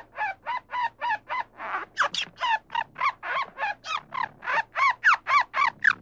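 Red squirrel giving a fast series of short chucking calls, about three or four a second, growing louder about two seconds in.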